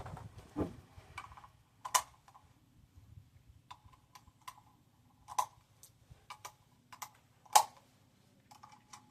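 Irregular sharp clicks and light metallic clacks, about a dozen, two of them louder, from a 3D-printed AR-15 being handled and its parts worked after its buffer was locked in.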